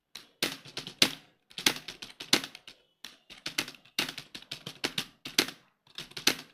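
Computer keyboard typed on at speed: fast, clattering keystrokes in runs with short pauses between them.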